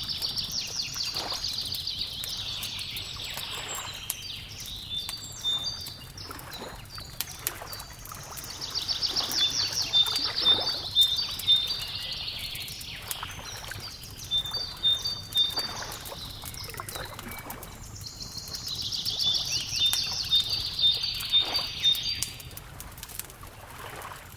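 A songbird's rapid trilling song phrase, repeated three times about ten seconds apart, over the snap and crackle of a wood fire and a low steady background rumble.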